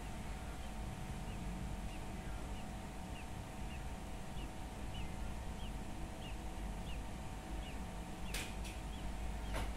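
Steady low hum with faint, short high chirps repeating about twice a second, and two sharp clicks near the end.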